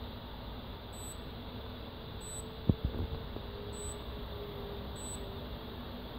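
A No.1 F3 smartwatch being handled: one sharp click about three seconds in as a side button is pressed, followed by a couple of softer clicks. Faint short high beeps repeat about every second and a half over a steady low hum, stopping near the end.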